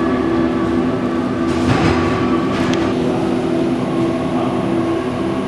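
A steady, fairly loud droning hum of several held low tones, with a brief rushing swell about two seconds in.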